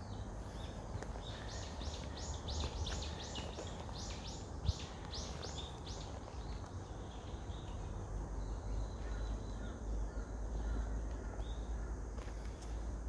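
A bird calls a rapid series of about fifteen short, high notes, roughly three a second, for about four seconds, followed by fainter scattered chirps. Under it runs a steady low rumble, with a single knock about a third of the way in.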